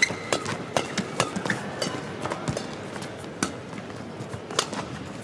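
Badminton rally: sharp, irregular racket strikes on the shuttlecock mixed with players' quick footfalls and brief shoe squeaks on the court.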